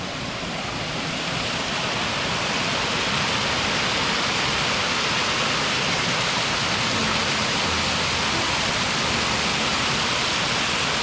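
A small mountain river rushing over rocks: a steady, even rush of water that grows louder over the first couple of seconds and then holds.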